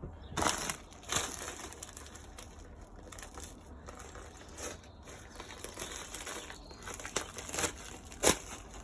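A postal bag being cut open with a knife and handled, crinkling and crackling, with several sharp snaps, the loudest near the end.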